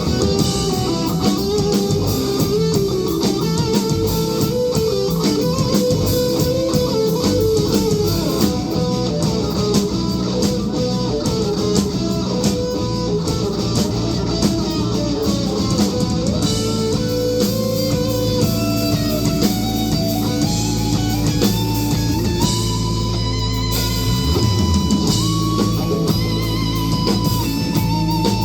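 Live band playing guitar-led rock music: electric guitars over bass and drums, continuous and loud.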